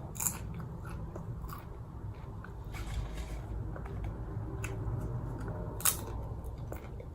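Someone eating popcorn: soft crunches and scattered small clicks while chewing, over a low steady hum.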